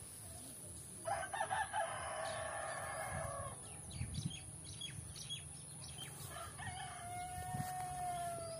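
Rooster crowing twice: the first crow, about a second in, opens with a few short notes and then holds for a couple of seconds; the second, starting near the end, is one long drawn-out note that falls slightly as it ends.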